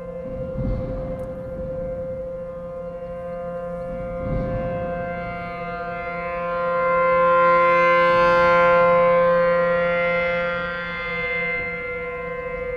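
ACA P-10 outdoor warning siren sounding a steady alert tone at one fixed pitch, rich in overtones. It swells louder over several seconds and then fades back.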